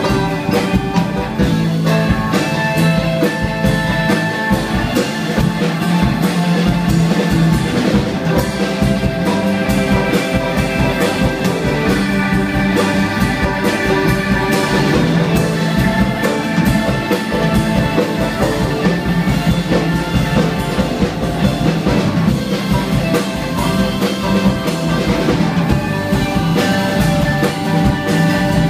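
Live rock band playing an instrumental passage: banjo, electric guitar, keyboards, bass and drum kit together over a steady beat.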